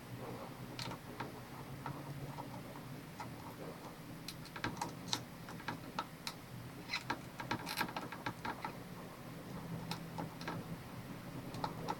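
Faint, irregular small clicks and taps of metal tools against a laptop motherboard's DC jack connector as it is worked loose from its solder joints.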